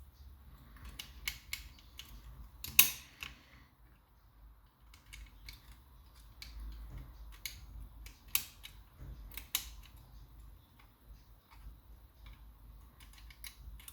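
Mortice lever lock being worked with homemade picking tools: metal clicks and light scraping, with a sharp click about three seconds in and a few more near the middle.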